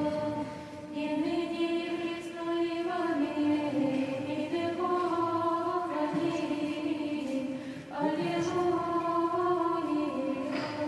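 Nuns' choir singing Orthodox chant without accompaniment, in sustained phrases that step from note to note, with short breaks between phrases about a second, three seconds and eight seconds in.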